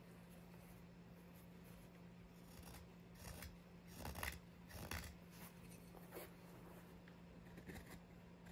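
Mora 106 carving knife shaving oak: a handful of short slicing cuts, each a quick scrape, starting about three seconds in and loudest around the middle, after a near-silent start.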